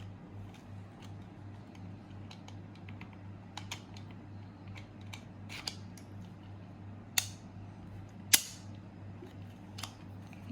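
A small key clicking and scraping in a padlock as a child works to unlock it, with scattered light clicks and two sharper clicks about seven and eight seconds in.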